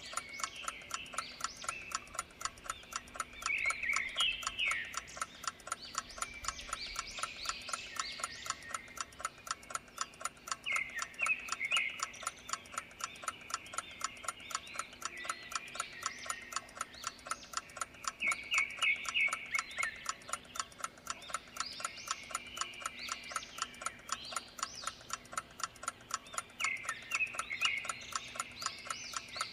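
Clock ticking steadily and evenly, the countdown timer's tick track. A short chirping trill comes back every seven or eight seconds over a soft nature-ambience background.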